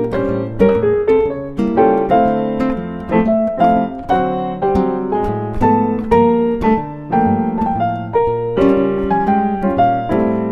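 Background music: a piano playing a steady run of struck notes.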